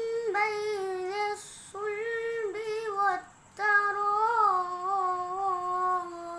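A boy's voice reciting the Quran in melodic tajweed chant: three phrases with short breath pauses between them, the last drawn out into a long held note.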